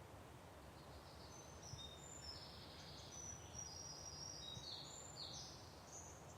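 Faint birdsong: a run of short, high chirps and trills starting about a second in and fading near the end, over a low steady background rumble.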